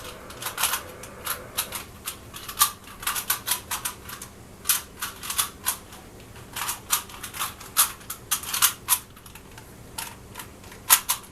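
Rubik's cube being scrambled by hand: its plastic layers click as they are turned, in quick, irregular runs of several clicks a second.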